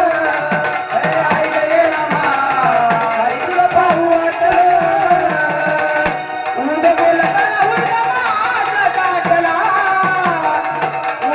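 Gondhal folk music: sambal drums beaten in a fast, steady rhythm under a sustained, wavering melody line. There is a brief break about six seconds in.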